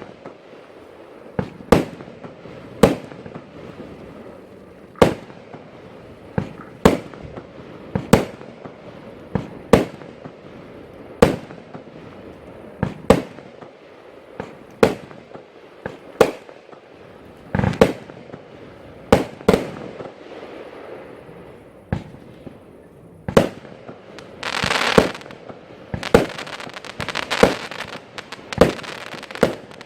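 Category F2 fireworks going off in a series of sharp bangs, roughly one every second or two, with a dense burst of crackling from about 24 seconds in.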